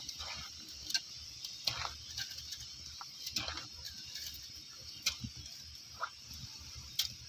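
Wood fire crackling, with sharp scattered pops at irregular intervals, over a low steady hiss from the pots cooking on it.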